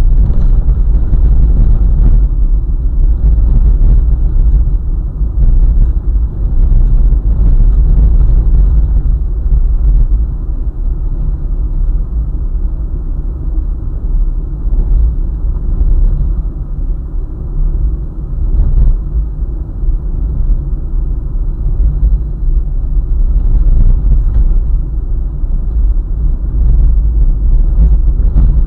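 Car driving along a highway: a steady, loud low rumble of road and engine noise, easing slightly in the middle, with a few brief crackles.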